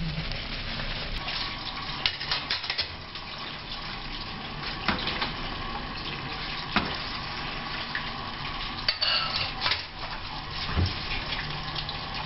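A pan of stuffed vegetables simmering in tomato sauce on a gas stove, with a steady sizzling hiss. Scattered clinks and knocks come from the lid and pan being handled.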